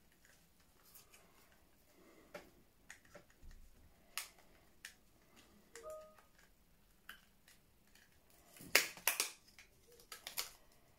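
Scattered light clicks and taps of a small plastic package being handled and opened, with a louder burst of sharp plastic clicks near the end as the new laptop RAM module's packaging is pried open.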